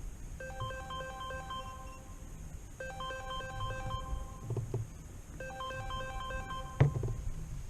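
Mobile phone ringtone: a short melodic phrase of clear beeping notes repeating about every two and a half seconds, three times, with a single sharp knock near the end.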